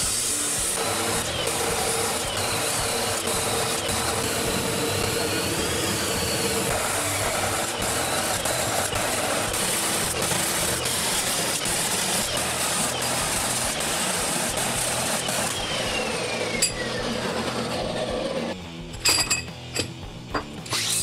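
Abrasive chop saw (cut-off saw) grinding through steel angle profile, a loud steady rasp with a falling whine near the end. It stops about 18 seconds in, followed by a few sharp clinks of the cut steel pieces being handled.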